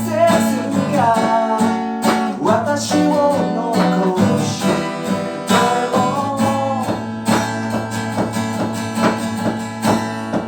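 A band playing an instrumental passage: a guitar carries a melody over drums that hit at a steady beat.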